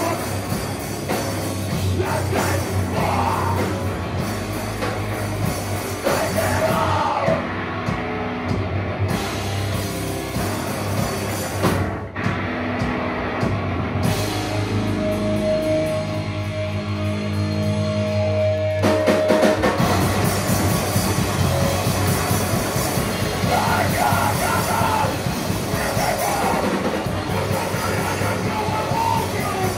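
Live heavy metal band playing loud guitars, bass and drums with vocals. About twelve seconds in, the cymbals drop away and held guitar and bass notes ring out. The full band comes back in near nineteen seconds.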